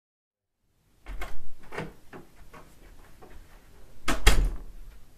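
After a second of silence, a series of light knocks and clicks, then a louder double knock about four seconds in, from someone moving about a small room and handling things near the camera.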